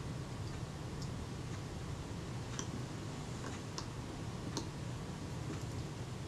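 A few faint, irregular ticks from a small screwdriver working tiny nickel-plated screws into a camera's top plate, over a low steady hum.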